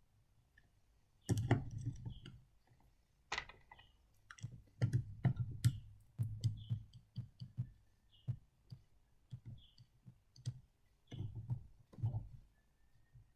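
Irregular small clicks and knocks of model train parts being handled and pried apart by hand, some with a dull thud.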